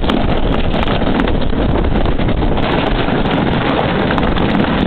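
Steady rushing noise of wind buffeting the microphone over the rumble of a sled sliding fast down a concrete bobsleigh chute.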